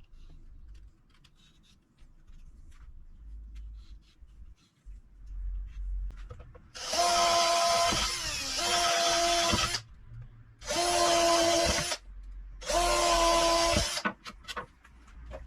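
A power tool's motor running at steady speed in short bursts, four in all, each lasting one to three seconds, with faint handling knocks before the first one.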